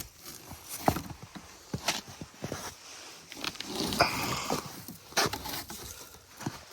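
Irregular scraping, rustling and light knocks of a person moving about on foot, with a louder stretch of rustling about four seconds in.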